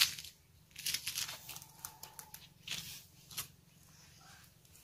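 Faint, brief rustling and scuffing noises: a few short bursts about a second in and again around three seconds in, over a low background hum.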